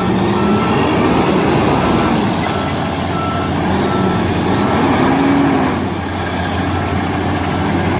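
Concrete mixer truck's diesel engine running as it manoeuvres, with a reversing alarm beeping at an even pace.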